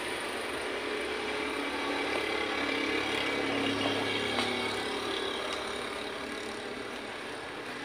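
A motor vehicle engine running in the background, its pitch shifting slowly and its level easing off toward the end.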